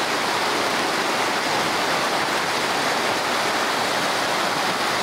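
A small mountain creek rushing steadily over rocks.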